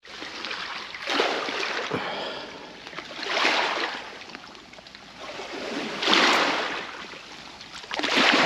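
Small waves breaking on the shore, the wash swelling and falling back about every two to three seconds.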